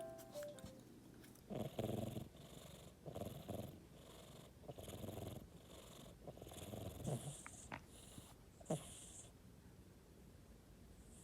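Faint, rhythmic cat purring that swells in and out about every second and a half, with a couple of sharp clicks partway through.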